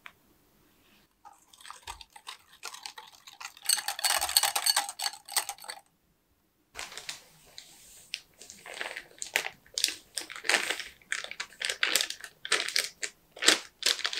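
A plastic bag of pancake mix crinkling in the hands as the powder is poured and shaken out into a glass mixing bowl: a run of irregular crackly rustles. Before that, a few seconds of dense rustling and scraping.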